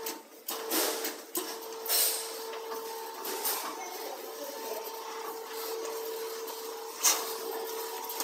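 Round duct elbow making machine running, its motor-driven seaming rollers giving a steady hum while the sheet-metal elbow section clicks and rattles as it is turned through them to close the lock seam. A single sharp metal clank about seven seconds in.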